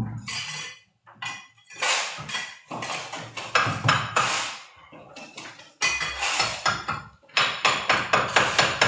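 Ceramic tiles and hand tools clinking and scraping during tiling work, an irregular clatter in clusters with short pauses.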